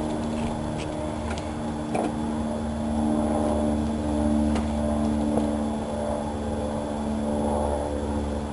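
A steady engine drone that swells and eases slightly, with a few light clicks over it.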